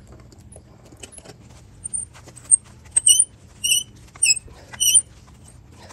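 Old vacuum breaker's threads squeaking as it is screwed off an outdoor faucet spout by hand. About halfway through, a run of short, high squeaks comes roughly every half second, over faint rubbing and small clicks.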